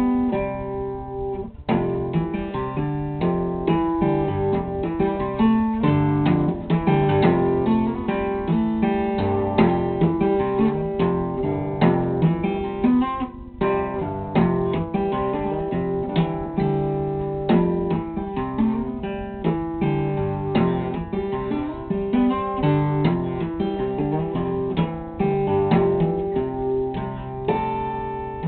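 Solo acoustic guitar played fingerstyle: a continuous run of plucked notes with sharp attacks, breaking off briefly twice, once near the start and once about halfway through.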